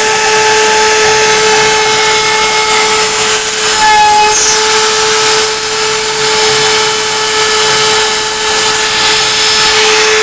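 CNC router spindle running with a steady high whine while its bit carves, with the cutting noise shifting briefly about four seconds in.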